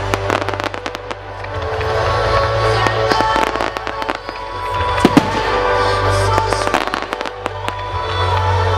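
Fireworks going off in quick succession, sharp bangs and crackles with a loud bang about five seconds in, over a music soundtrack with sustained notes.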